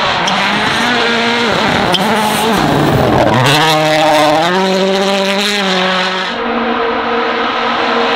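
World Rally Car engines at full race revs on a snowy stage: the engine note drops and then climbs hard as the car slides through the snow, with a few sharp cracks. About six seconds in, a cut to another car coming on at a steadier pitch.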